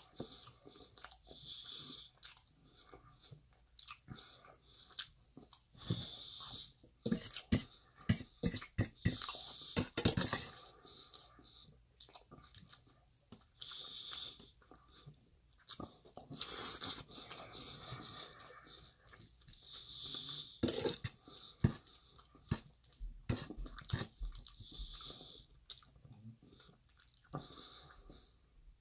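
Close-up chewing and mouth sounds of someone eating rice, with breath through the nose. Scattered sharp clicks, in clusters, come from a metal fork against a stainless steel bowl.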